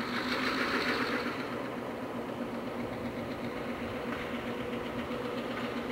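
Diesel-electric locomotive engine idling steadily with an even hum. A hiss rides over it for about the first second.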